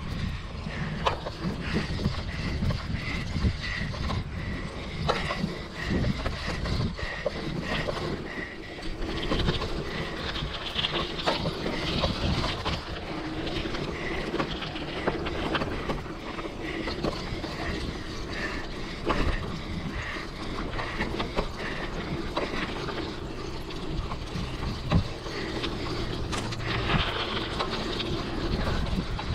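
Mountain bike ridden along a dirt trail: a steady rumble of tyres and wind on the microphone, with the bike's rattles and knocks over bumps. A light, even ticking of the freewheel while coasting runs through the first third.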